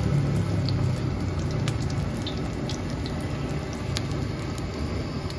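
Slab of pork deep-frying in a wok of hot oil: a steady sizzle with scattered crackling pops.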